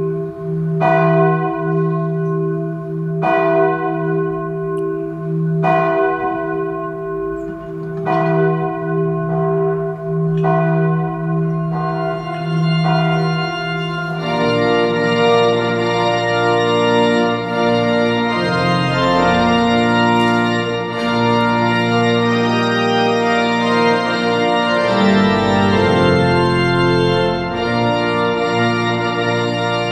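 A church bell tolling, one ringing stroke about every two and a half seconds over a sustained hum, for roughly the first half. Then a church organ takes over with full sustained chords as the bride's procession begins.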